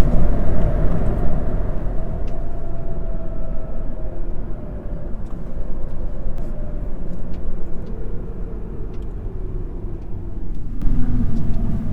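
Road vehicle running at speed, heard from inside: a steady low rumble of engine and tyres, with a faint whine that slowly drops in pitch.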